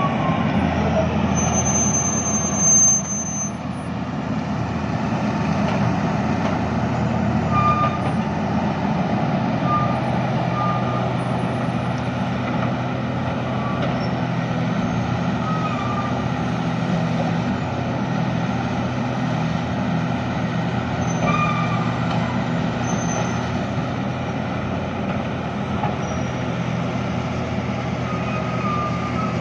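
Heavy-equipment diesel engine of an excavator running steadily, with a brief high squeal about two seconds in and short high tones now and then.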